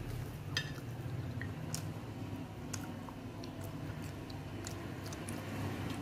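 Eating rice and curry by hand off a glass plate: soft wet squishing of rice mixed with the fingers and chewing, with scattered small clicks and one light ringing clink about half a second in. A steady low hum runs underneath.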